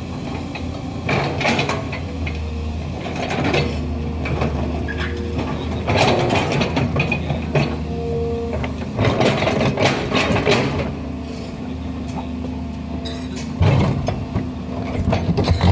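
Komatsu PC210 hydraulic excavator's diesel engine running steadily under load, with the steel bucket scraping and crunching through hard, rocky soil in repeated bursts.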